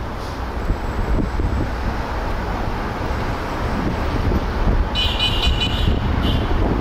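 Wind and road noise from riding along a street in a moving vehicle, with a high-pitched horn beeping in a quick run of short pulses about five seconds in and once more briefly just after.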